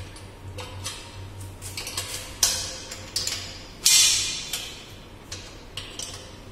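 Metal clinks and scrapes of a spanner on the bolts of a water-cooled condenser's end head as it is being unbolted, with a few sharper clanks; the loudest comes about four seconds in and rings briefly.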